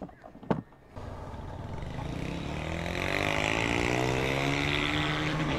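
A few short knocks, then a motorcycle engine pulling away: its note climbs steadily as it accelerates, then levels off, with a growing rush of wind noise.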